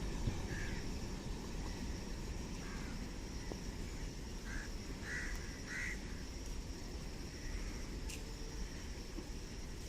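Outdoor rural ambience: a low steady rumble and a steady high insect drone, with a handful of short animal calls, three of them close together around five seconds in.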